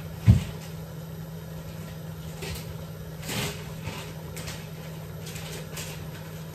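A single low thud about a third of a second in, then a few faint knocks and rustles of kitchen handling over a steady low hum.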